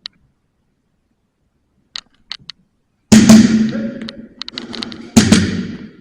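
A few faint sharp clicks about two seconds in, then two loud bangs a couple of seconds apart, each ringing out in a long echo for about a second, as in a large hard-walled hall during airsoft play.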